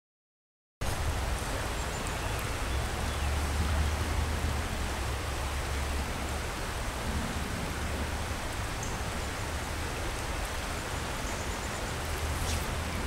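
Steady rush of flowing river water with a low rumble on the microphone, cutting in suddenly about a second in.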